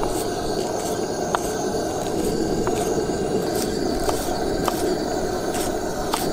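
Chef's knife slicing green onions on a plastic cutting board, with short sharp knife taps about twice a second over a steady rushing background noise.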